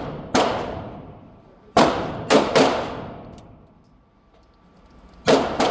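Six gunshots fired at a target: one, then three in quick succession about two seconds in, then two more near the end. Each shot is followed by a long echoing decay.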